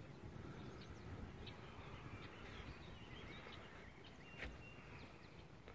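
Faint birds chirping, with short scattered calls over a low, steady rumble; a single sharp click about four and a half seconds in.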